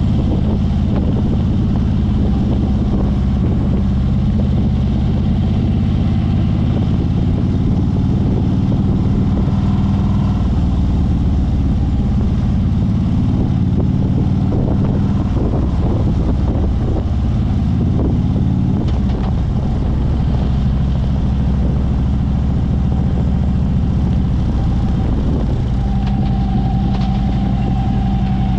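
Harley-Davidson V-twin motorcycle engine running steadily at low riding speed, heard from on the bike, as a steady low drone with small changes in pitch partway through.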